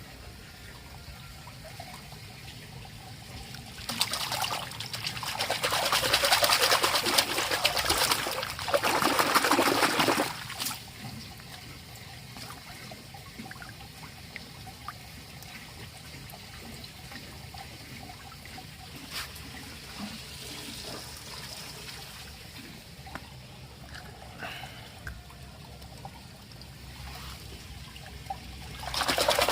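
Water pouring and splashing loudly for several seconds, then a quieter stretch with scattered light knocks, then a second pour starting near the end.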